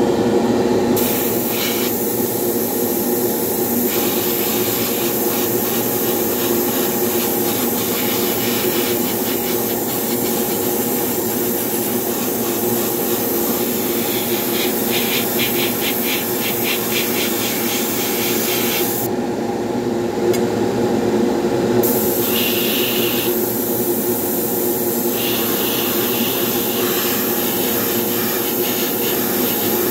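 Siphon-feed airbrush hissing as it sprays paint onto a brass model locomotive part, over the steady hum of a spray booth exhaust fan. The airbrush hiss starts about a second in and stops for about three seconds around two-thirds through before starting again.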